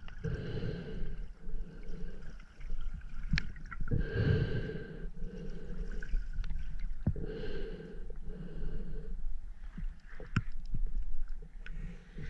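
Snorkeler breathing slowly in and out through a snorkel tube, about six breaths of a second or so each, the tube giving each breath a hollow ring. A few sharp clicks fall between the breaths.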